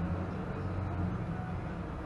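Steady low road and engine rumble of a car driving at highway speed, heard from inside the car.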